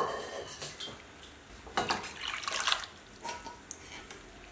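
Water being poured and splashing into a pan of sambar, mostly in a short spell about two seconds in, with a few light clicks of the wooden spatula in the pan.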